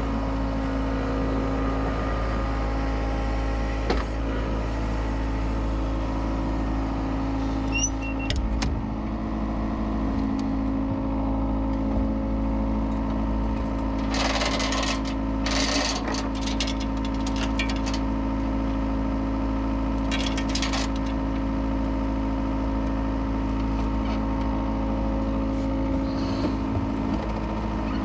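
Skid steer diesel engine running at steady revs, with short hissing bursts about halfway through and again a few seconds later.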